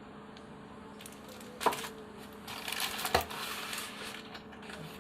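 Packaging rustling and crinkling as a laptop's power cord and power brick are unpacked, with two sharp knocks, one near two seconds in and one around three seconds in.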